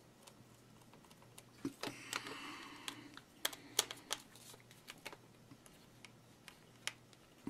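Quiet, scattered clicks and taps of the plastic and stainless-steel housing of an electric wine bottle opener being handled during reassembly, with a short rustle about two seconds in.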